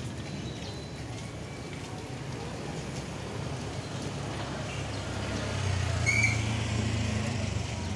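Street traffic noise with a motorcycle engine passing close by, swelling to its loudest about six seconds in, with a short high chirp at the peak.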